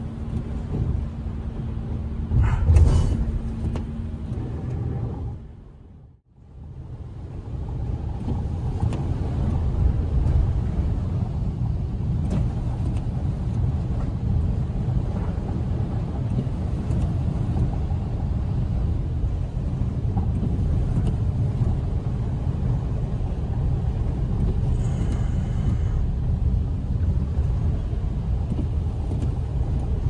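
Road noise inside a car cabin while driving on a wet, slushy snow-covered road: a steady low rumble of engine and tyres. There is a louder thump about three seconds in, and the sound briefly drops out about six seconds in before the rumble resumes.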